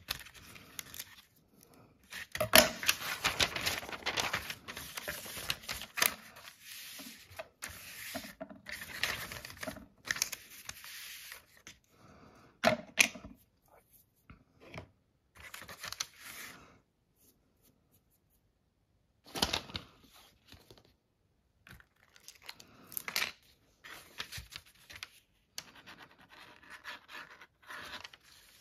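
Paper being handled and torn in irregular bursts of rustling and tearing with sharp clicks, broken by short pauses and a nearly silent stretch of about two seconds past the middle.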